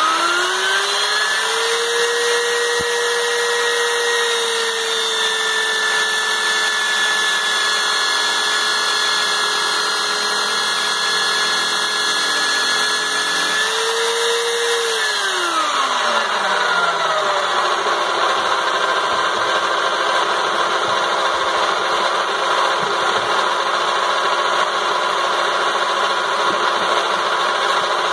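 Motor of a small Lidl Parkside lathe whining as it spins a wooden blank. The whine rises in pitch as it speeds up over the first couple of seconds, then holds steady. About halfway through it falls smoothly to a lower pitch and runs on there.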